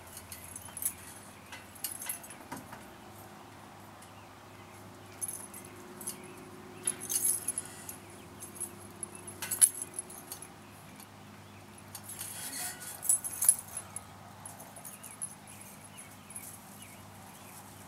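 Irregular metallic clinks and jangling rattles from playground overhead rings and bars as a person swings hand over hand along them, over a steady low hum.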